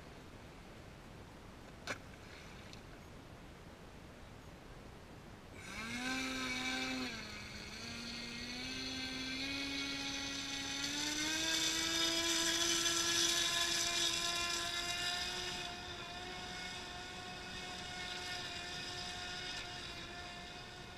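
Radio-controlled model boat's motor whining at speed, starting about five seconds in, its pitch climbing slowly as it grows loud and then easing off near the end. A single sharp click comes about two seconds in.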